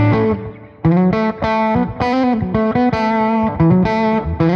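Electric guitar played through a Mad Professor Sweet Honey Overdrive Deluxe with a Thorpy Fat General compressor engaged: a held note fades out, then a melodic line of single picked notes comes about three a second.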